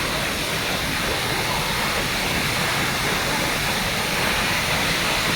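The Gega waterfall pouring: a steady, even rush of falling water.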